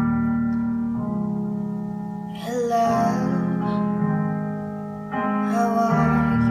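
A woman singing over piano accompaniment, with sustained chords changing about once a second and two sung phrases coming in about two and a half and five seconds in.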